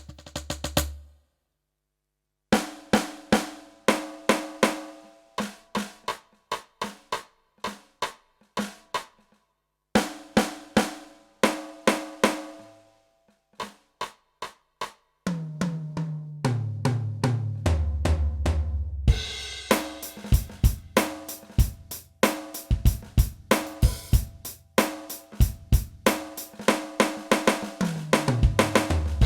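Yamaha DTX720K electronic drum kit played through its DTX700 module, demonstrating its kit sounds as short drum grooves separated by brief pauses. Near the middle, a tom fill steps down in pitch, and then a busier groove with cymbals and hi-hat runs on.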